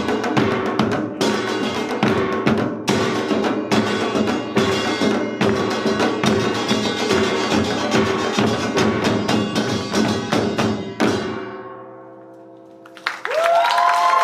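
Korean samul nori percussion ensemble (buk and janggu drums with kkwaenggwari and jing gongs) playing a fast, dense rhythm in Yeongnam style. The piece ends on a final stroke about 11 seconds in, and the instruments ring out and fade. Near the end the audience breaks into cheering and applause.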